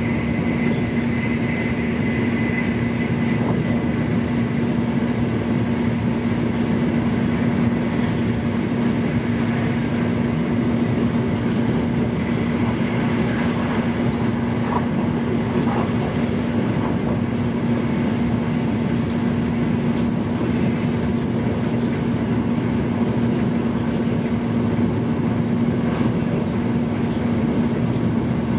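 Interior noise of a high-speed train running at speed: a steady rumble with a constant low hum. A faint high whine fades out a few seconds in, and a few faint clicks sound now and then.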